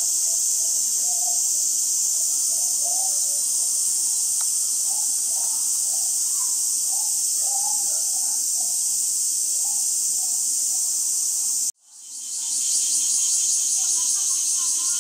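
Steady, high-pitched insect drone, with faint voices of people underneath. About twelve seconds in, the sound cuts out abruptly and fades back in, and the drone then pulses quickly.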